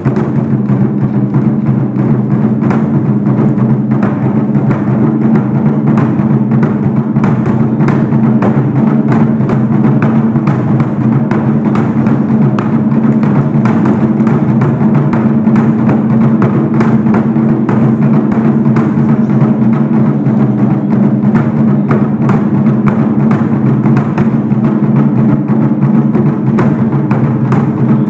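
Taiko drumming: large barrel-shaped Japanese drums struck with wooden sticks in a fast, dense, unbroken pattern, each stroke ringing in the drum body.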